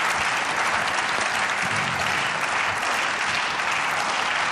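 Members of parliament applauding at the end of a speech: many people clapping at once in a steady, unbroken patter.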